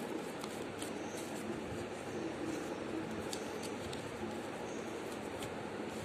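Origami paper being handled and creased: faint, scattered crinkles and scrapes over a steady background hiss.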